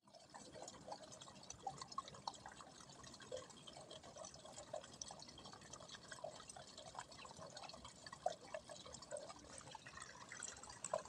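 Faint, irregular small drips and plops of pond water.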